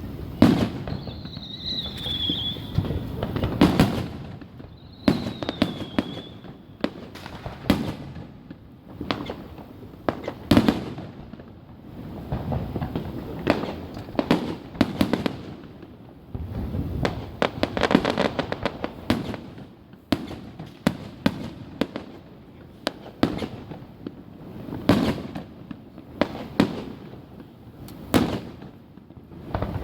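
Aerial fireworks bursting in a steady barrage of booms and sharp reports, some in quick crackling clusters. Two short whistling tones sound about two and five seconds in.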